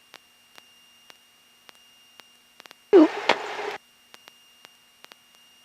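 Faint electrical hiss with a thin steady whine, a low hum and scattered soft clicks, as on a light aircraft's headset intercom feed, with one brief loud burst about three seconds in.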